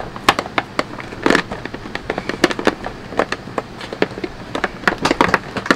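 Irregular run of sharp clicks and knocks from the hard plastic hose, wand and body of a Sebo Evolution 350 upright vacuum being handled and fitted together.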